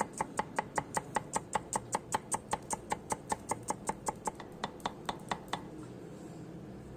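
Cleaver chopping shallots on a wooden cutting board: quick, even knocks of the blade on the board, about five a second. The knocks stop about five and a half seconds in.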